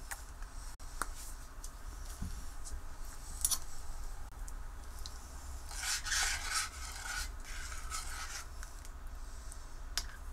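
A metal ladle stirring soup in a stainless steel pot, scraping and clinking against the pot, with the densest scraping from about six to eight seconds in and a few light clinks before it. A low steady hum runs underneath.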